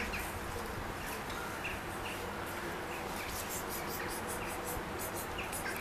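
A cat chewing dry kibble: a run of quick, crisp crunches several times a second, thickest in the second half.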